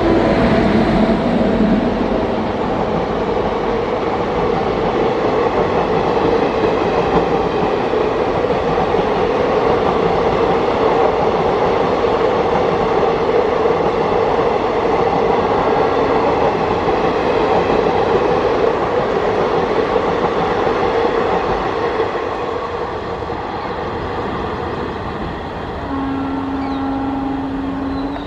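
Indian Railways train passing close by: a long, loud rush of wheels on rail that fades toward the end. A horn tone cuts off about a second in, and a short, steady horn blast of about two seconds sounds near the end.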